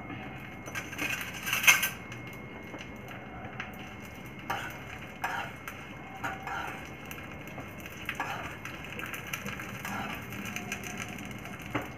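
A metal spoon scraping and clinking against a small frying pan as fried dried red chillies are scooped out. The clicks and scrapes are scattered, the loudest about two seconds in.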